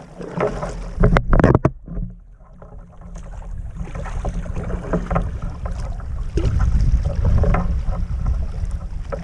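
Water lapping and splashing against a kayak's hull close to the microphone, with wind rumbling on the microphone; a few sharp louder splashes and knocks come about a second in.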